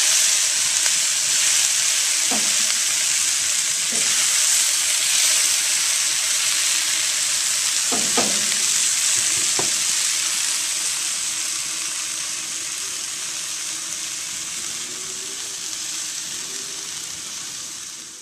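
Chicken with peppers and onions sizzling in a cast iron skillet over a grill fire: a steady hiss, with a few light knocks. The sizzle gradually fades toward the end.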